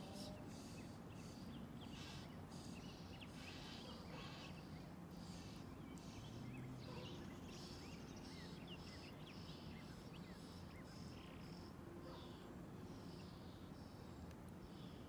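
Faint chorus of birds calling, with many short chirps and brief repeated calls overlapping throughout. A steady low rumble of background noise runs underneath.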